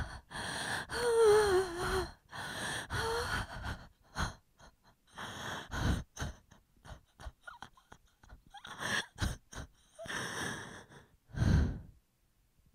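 A person's voice gives a wavering, falling moan, then a run of short gasps and ragged breaths.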